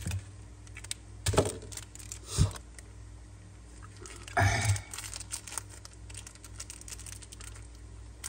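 Metal Zippo lighter cases being handled: a few knocks and clicks and light scraping as a lighter is picked up and turned over, over a low steady hum.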